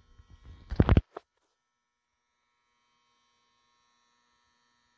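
A short burst of noise in the first second, then near silence with only a faint steady electrical hum.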